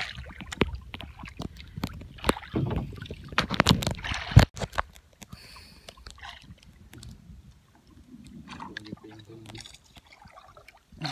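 Rustling and knocking from close handling, busiest in the first half with one sharp knock about four seconds in, then quieter with faint voices.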